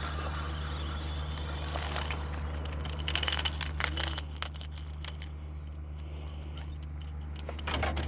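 Fishing reel being cranked as a hooked trout is reeled in and swung aboard, with a run of sharp clicks and metallic clinks around three to four seconds in as the fish and lure come over the side. A steady low hum runs underneath.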